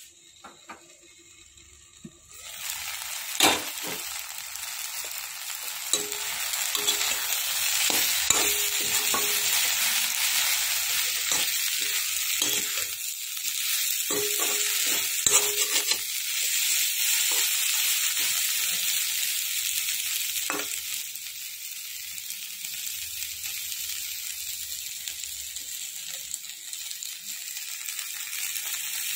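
Water spinach and potato slices frying in oil in a wok, sizzling steadily from about two seconds in. A slotted spoon scrapes and knocks against the pan now and then as the vegetables are stirred.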